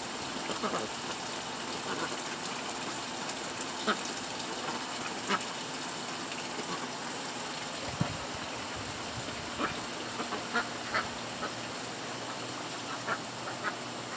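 Ducks quacking in short, scattered calls over the steady wash of water running from a garden hose into a small pond, with splashes as they bathe.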